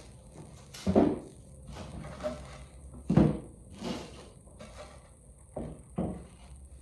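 Several dull knocks and thumps from objects being handled and set down, the loudest about one second and three seconds in, with smaller ones after.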